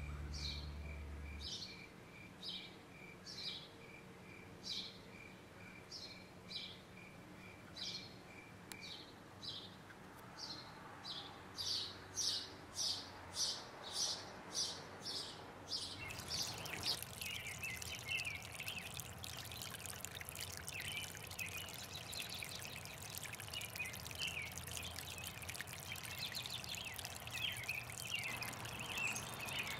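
A sparrow chirping repeatedly, single short chirps about once or twice a second that come quicker toward the middle, with a faint steady pulsing peep behind them at first. About halfway through it gives way to a small stream trickling and splashing over rocks.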